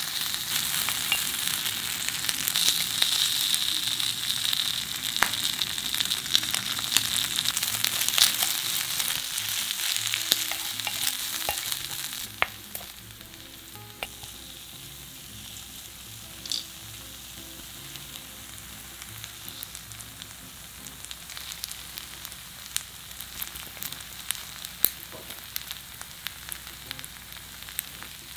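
Yukhoe (beef tartare) fried rice sizzling in a hot pan as two wooden spatulas stir and toss it, with scattered clicks and scrapes. About twelve seconds in the stirring stops and the sizzle settles to a quieter, steady crackle with an occasional pop.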